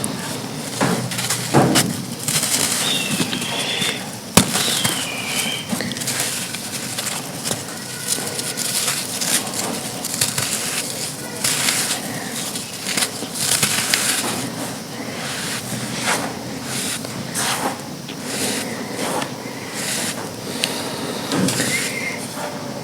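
Dry sand chunks being crushed and crumbled: a dense run of crisp crackling and crunching, with sharper snaps about one and a half and four seconds in.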